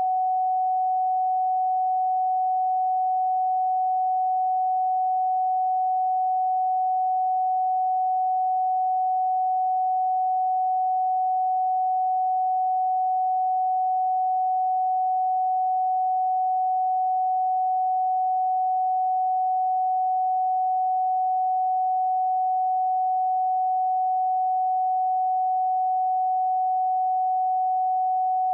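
A pure tone, a single electronically generated sine wave, held steady at one mid pitch with no change in pitch or loudness.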